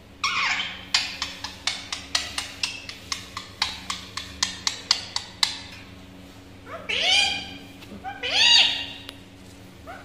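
Indian ringneck parakeet calling: one call at the start, then a quick run of short sharp chirps, about three a second, then two drawn-out squawks that rise and fall in pitch near the end.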